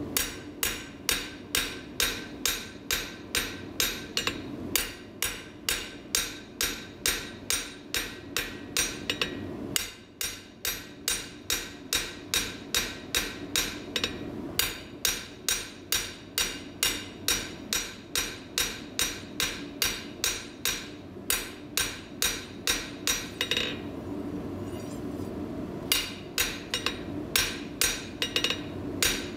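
Cross peen hammer's flat face striking hot half-inch square steel on the anvil face in a steady run of blows, about two and a half a second: finishing blows that set the lines of a forged taper at low heat. The blows pause briefly about ten seconds in and for about two seconds near the end.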